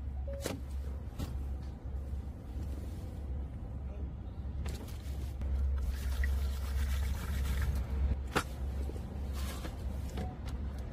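A plastic makgeolli bottle being opened: clicks of the twisted cap and a fizzing hiss as the carbonated rice wine lets out gas, over a steady low rumble.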